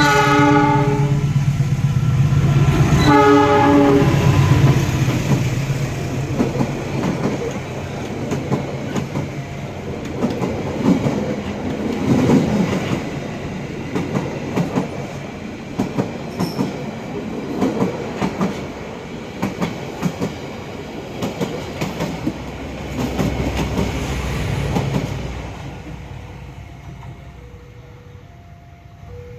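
Train horn sounding two blasts, the second about three seconds in, then the train passing over the level crossing with wheels clacking over the rail joints for about twenty seconds before it fades away. Near the end the crossing's two-tone warning bell is heard ringing.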